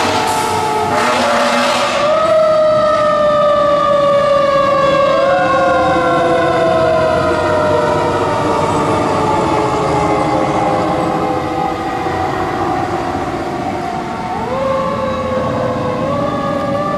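Fire truck siren wailing as the trucks drive off, its pitch jumping up sharply several times and then sliding slowly down over many seconds each time, over the rumble of the heavy trucks.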